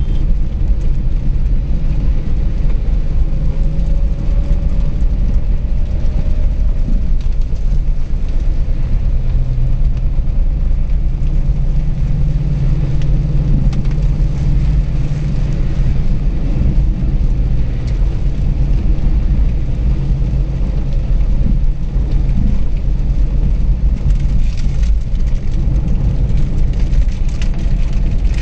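Steady low rumble of a car's engine and tyres heard inside the cabin on a wet highway, with a hiss of rain and road spray over it.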